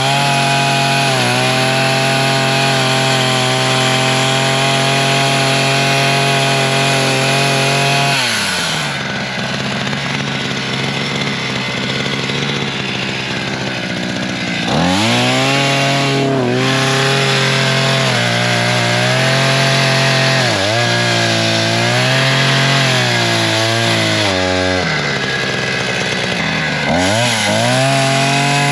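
Two-stroke chainsaw engine on a wheeled push-type chain brush cutter running at high revs while the chain cuts brush and saplings. About eight seconds in the revs fall away for several seconds, then climb again, sagging and recovering several times as the chain takes the load.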